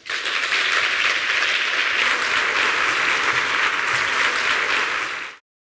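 A large audience applauding steadily after a talk; the applause cuts off suddenly a little over five seconds in.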